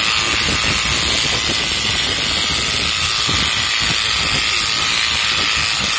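Corded electric shearing clipper running steadily as its blades cut through a large dog's thick fur.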